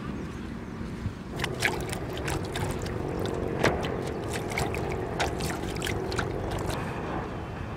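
River water splashing and lapping close by, a run of irregular small splashes around a floating balloon used as a fishing float, over a faint steady hum. The splashes start about a second in and stop shortly before the end.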